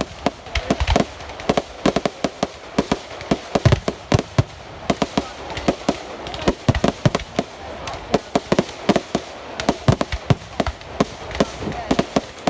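Fireworks going off in a rapid, irregular string of sharp bangs, several a second, over a steady background rumble.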